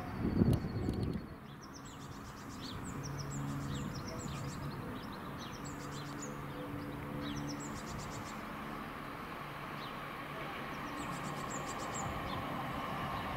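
Small birds chirp over the low, steady hum of a distant electric multiple unit approaching, its noise swelling near the end. A brief rumble cuts off about a second in.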